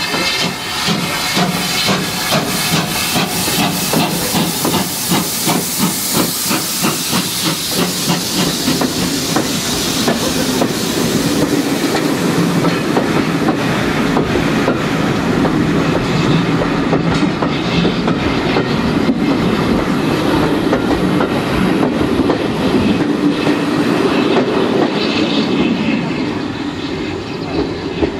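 Steam locomotive pulling a train away, its exhaust chuffing in an even beat with steam hissing, then the carriages rolling past with occasional wheel clicks. The sound eases off near the end as the train moves away.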